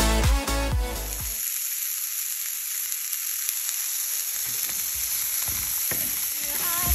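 Chopped apple and almonds sizzling in a frying pan: a steady hiss. A dance-music track plays for about the first second and cuts off, and music comes back in right at the end.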